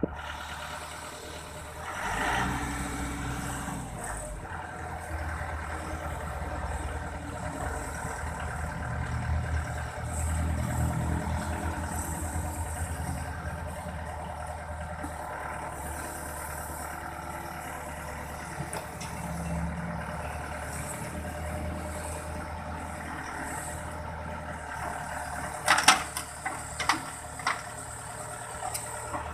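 Heavy diesel machinery engine running steadily, its note swelling and easing several times as it works. A few sharp knocks come near the end.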